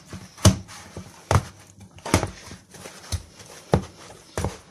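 Hands kneading soft yeast bread dough in a metal bowl: about six pressing, slapping strokes, each a soft thud less than a second apart.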